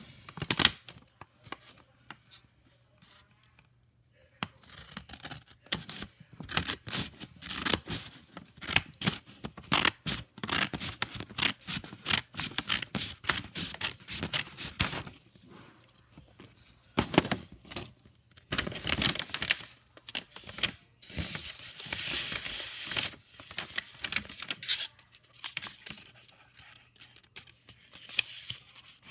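Paper packaging being cut and torn open by hand: repeated runs of crinkling, scraping and ripping, with short pauses between.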